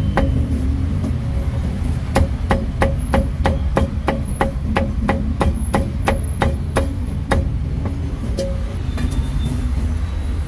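Steel meat cleaver chopping crispy roast pork belly on a round wooden chopping block: a rapid run of even chops, about three a second, from about two seconds in until a few seconds before the end, with a couple of lone chops after. A steady low hum runs underneath.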